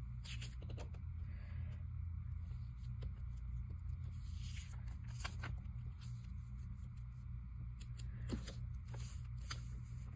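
Scotch glue stick rubbing over paper while a magazine cut-out is handled and smoothed down: scattered soft rustles and scrapes over a steady low hum.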